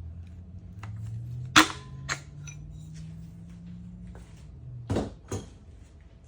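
Sharp knocks as a piston is tapped down through a ring compressor into a cylinder bore of a Honda K-series engine block: about four separate knocks, the loudest a little over a second and a half in and a pair near the end, over a low steady hum.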